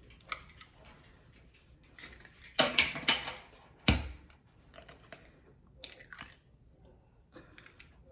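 Eggs being cracked one after the other on the rim of a ceramic mixing bowl. A cluster of crackles about two and a half seconds in is followed by a sharp knock about four seconds in, then smaller shell crackles and taps.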